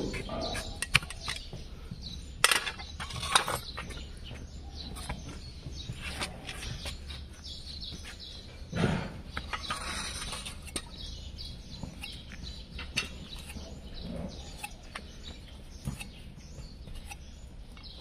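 Hoof knives cutting a donkey's hoof: irregular sharp clicks and scraping strokes of the steel blade shaving off hard hoof horn, over a steady low hum.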